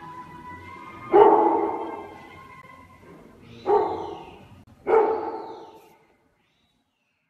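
A dog barking three times, each bark sudden and loud with a ringing tail that dies away.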